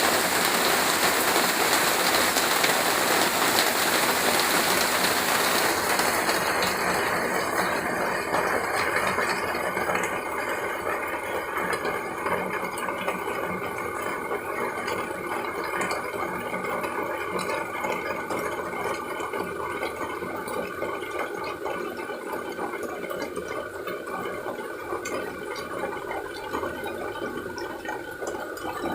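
Rain falling steadily; about six seconds in the bright hiss thins out and the rain slowly grows quieter, leaving a rougher splashing of water.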